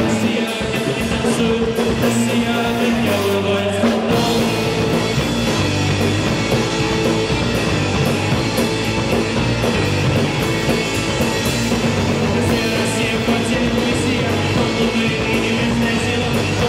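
Live rock band playing: electric bass, electric guitar and drum kit. The sound thickens about four seconds in as the full band plays harder.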